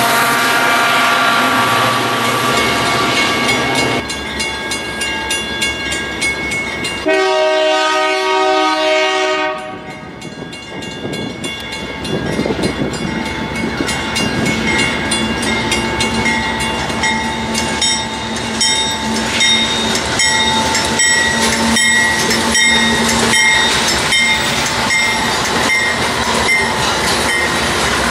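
Diesel trains running close by: a train horn sounds for about two and a half seconds partway through. Then a Canadian Pacific GE AC4400CW freight locomotive approaches and comes alongside, its engine growing louder, with a steady run of wheel clicks over the rail joints.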